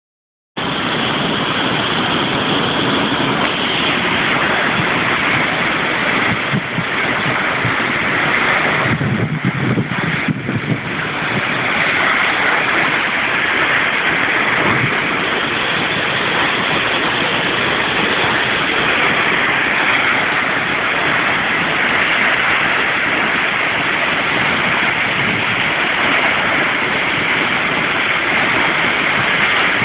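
Waterfall in heavy flow after a big rain, a loud, steady rush of falling water. About nine seconds in, the higher part thins for a second or so and a lower rumble comes up.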